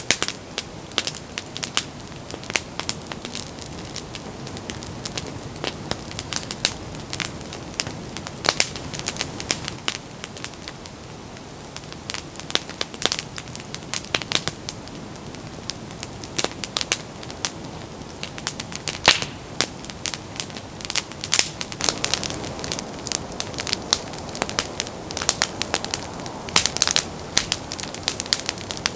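Wood fire crackling, with frequent irregular sharp pops and snaps over a steady low hiss.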